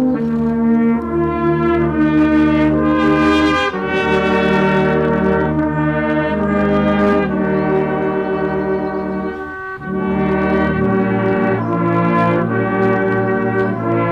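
Brass ensemble playing slow music in sustained chords that change every second or two, with a short break between phrases about ten seconds in.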